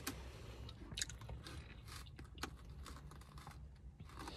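A person chewing a soft mini donut with the mouth close to the microphone: quiet, moist chewing with a few scattered sharp clicks.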